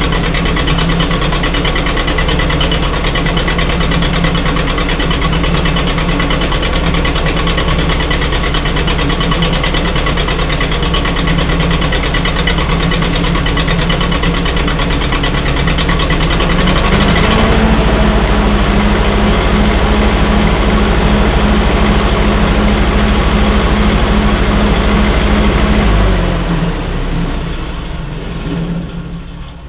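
Lincoln SA-200 welder's Continental F-163 four-cylinder flathead gasoline engine running steadily through its muffler, after a tune-up that lets it fire on all cylinders. About two-thirds of the way in it speeds up slightly and gets louder, then near the end it slows and winds down.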